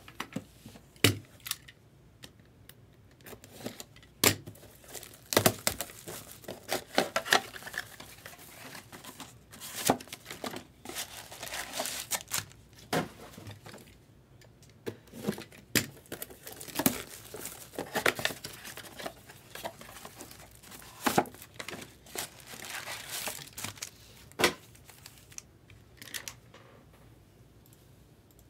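Bowman Draft Sapphire Edition trading-card boxes being unwrapped and opened by hand: wrapping torn and crinkled in irregular sharp crackles, with taps of cardboard and packs being handled, thinning out near the end.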